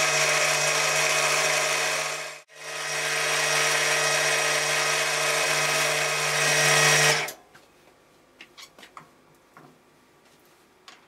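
Milling machine running with a drill in its chuck, drilling an aluminium sphere: a steady motor hum with a whirring noise over it. The sound drops out briefly about two and a half seconds in, then stops about seven seconds in, leaving a few faint clicks.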